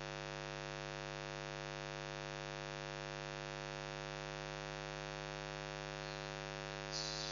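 Steady electrical mains hum with a long stack of evenly spaced overtones, running unchanged; a brief soft hiss near the end.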